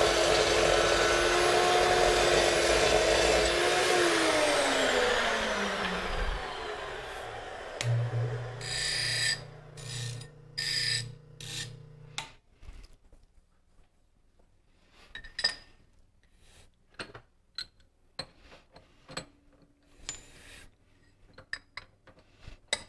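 DeWalt cold-cut chop saw with a carbide blade cutting through 6061 aluminium extrusion. About four seconds in the motor is released and the blade winds down, its whine falling over about two seconds. Later a bench wheel runs for about four seconds with short scraping touches as the cut end is deburred, followed by small clicks and knocks of the part being handled.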